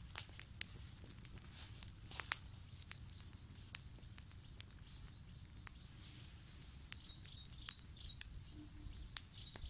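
Small fire of dry leaves and twigs burning on the ground, crackling with irregular sharp snaps, a few of them louder than the rest.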